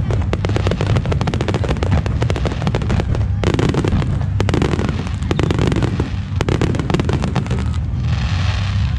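Aerial fireworks crackling: a dense, rapid crackle over a continuous low rumble, which stops about eight seconds in and leaves a steadier hiss.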